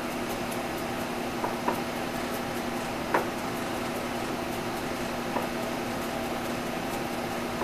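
A steady mechanical hum of kitchen equipment runs throughout. Over it come four scattered knocks of a knife blade on a plastic cutting board as garlic is minced, the sharpest about three seconds in.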